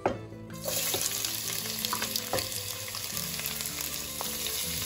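Sliced onions hitting hot vegetable oil in a stainless-steel pan: a sizzle starts suddenly about half a second in and carries on steadily. A few knocks sound near the start and around two seconds in as the onions are pushed off the wooden cutting board.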